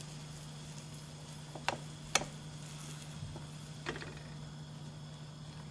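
Three light knocks or clicks over a steady low hum: two about two seconds in, half a second apart, and one more near the four-second mark.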